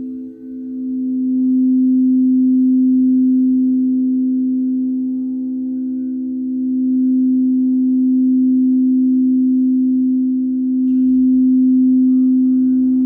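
Singing bowl sounding a steady held tone with a few fainter overtones above it, its level swelling and easing gently. There is a brief dip in level just after the start.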